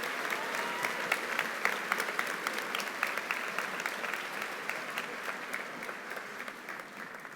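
Large audience applauding, a steady patter of many hands clapping that fades out near the end.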